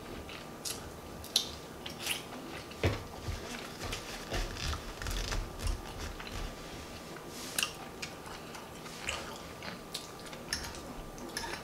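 A person chewing food close to the microphone, with soft wet mouth smacks and small clicks at an irregular pace.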